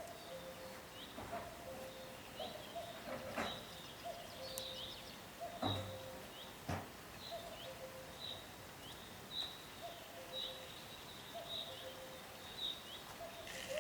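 Birds chirping faintly, a short high chirp about once a second, with short lower calls in between and a few soft knocks.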